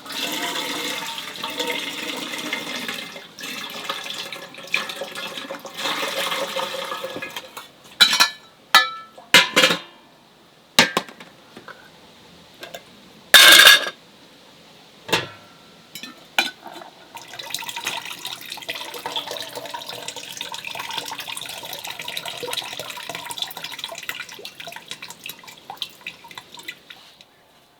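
Water running and splashing, with scattered clinks and knocks of dishes and glass, and one louder clatter about halfway through.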